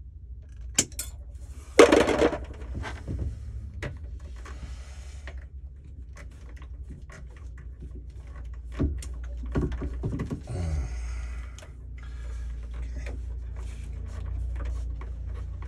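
Hand-handling noises while wiring is pushed into a water heater's electrical compartment: scattered clicks and knocks with short rustles, the loudest a sharp knock about two seconds in, over a steady low hum.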